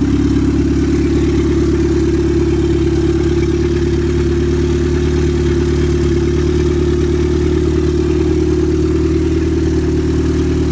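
Turbocharged Honda hatchback engine idling steadily just after a cold start.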